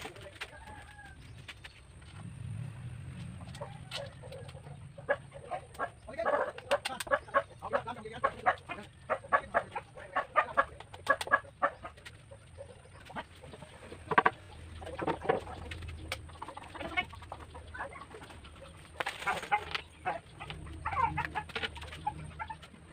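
Chickens clucking in runs of short calls, mixed with clicks and knocks from plywood boards being clamped with locking clamps onto a tubular steel chair frame, the sharpest knock about two-thirds of the way through.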